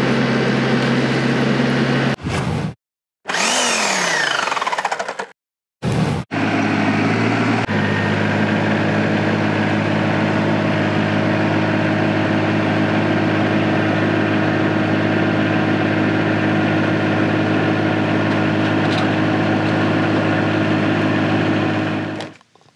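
Diesel tractor engine running steadily, heard in several short pieces with abrupt cuts and brief silences between them. In one piece, a few seconds in, its pitch falls. From about 6 s it runs on at a steady pitch.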